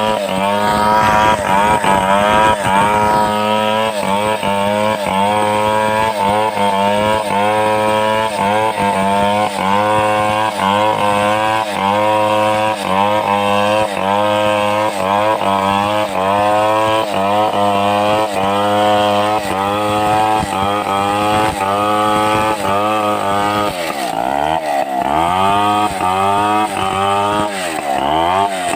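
Stihl 070 two-stroke chainsaw running at high revs under load while cutting timber into a beam, its engine pitch wavering up and down as the chain bites. Near the end the revs drop sharply twice and pick up again.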